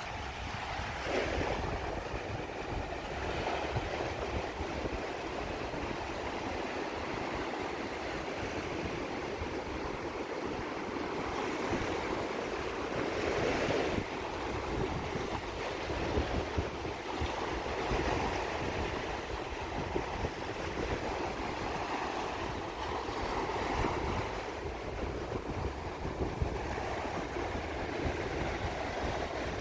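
Wind buffeting the microphone, with a steady rushing wash that rises and falls in slow surges.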